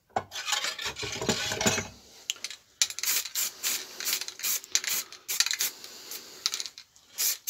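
Handling of the cast scale body, a rub and clatter as it is turned. Then an aerosol spray-paint can is shaken, its mixing ball rattling in quick strokes, about three to four a second.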